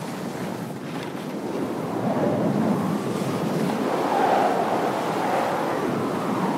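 A rushing noise like surf or wind, swelling about two seconds in and loudest around four seconds in.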